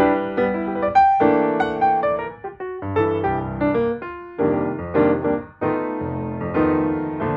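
Background piano music: a melody of struck notes that ring and fade.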